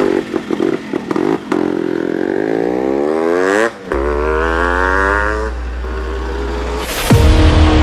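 Two-stroke motorcycle engine revving, its pitch climbing twice with a brief break between, then running steadier. Electronic music with a heavy beat cuts in near the end.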